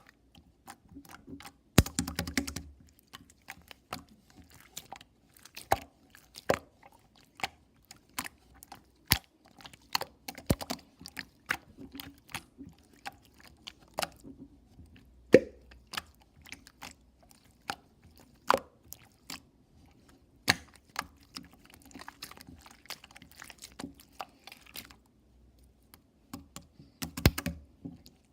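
Close-miked chewing and crunching: irregular sharp clicks and crackles, with louder crunchy bursts about two seconds in and near the end.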